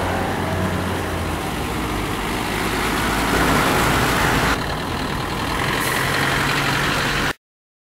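Diesel school bus engines running as the buses drive slowly past, a steady low engine drone. The sound cuts off abruptly near the end.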